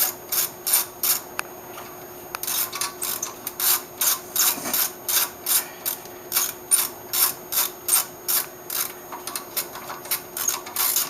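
Ratchet wrench worked back and forth in quick short strokes on the upstream O2 sensor, its pawl rasping about three times a second, with a short pause about two seconds in.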